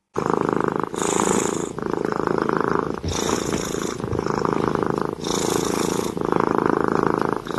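White kitten purring loudly and steadily while suckling from a bottle, the purr dipping briefly about once a second.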